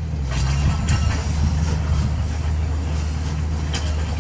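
Heavy diesel engines of a dump truck and a crawler bulldozer running steadily with a low hum, with a few sharp metallic clanks.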